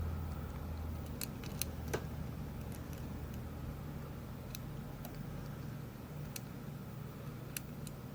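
Scattered small metallic clicks of a lock pick and turning tool working the pins inside a Rav Bariach LocXis pin-in-pin cylinder, about seven irregular ticks, over a steady low hum.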